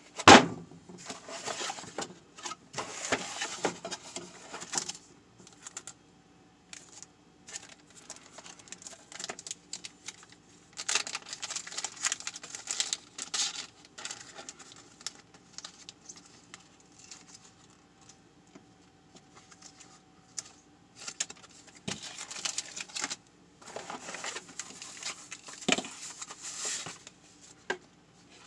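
Cardboard box and plastic packaging handled in bursts: the box lid and flaps scraping, plastic bags crinkling as colour filters and an LED panel are pulled out. A sharp knock comes right at the start and a few lighter knocks later, over a faint steady hum.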